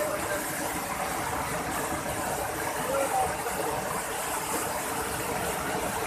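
Steady rush of a fast mountain stream tumbling over boulders, an even white-water roar.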